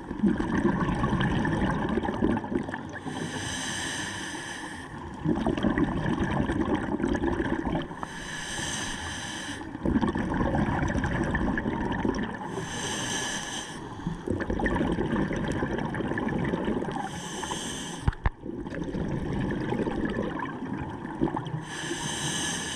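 Scuba diver breathing underwater through a regulator, about five breaths at one every four to five seconds. Each is a short hissing inhale followed by a longer, lower bubbling exhale. There is a single sharp click about eighteen seconds in.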